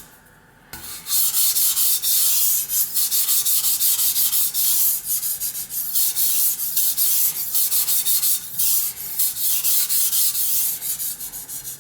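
Steel kitchen cleaver blade stroked back and forth on the wet 1000-grit side of a Suehiro SKG-38 combination whetstone, a steady run of gritty scraping strokes through thick slurry that the soft stone throws up with almost no pressure. The strokes start after a short pause at the beginning.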